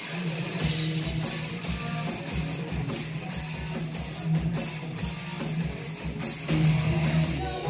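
A live heavy rock band playing: distorted electric guitars and bass holding a heavy low drone, with the drum kit's cymbals struck on a steady beat, picked up by a phone's microphone.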